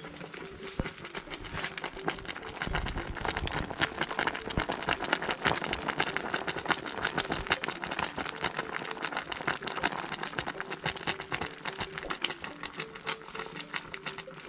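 Saucepan of dried sweet potato slices boiling on a charcoal stove: a dense, steady crackle of popping and bubbling, with faint music underneath.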